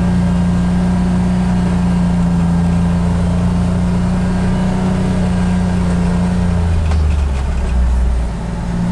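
John Deere XUV835M Gator utility vehicle's engine running steadily while driving. Near the end the engine note drops briefly as it slows, then rises again.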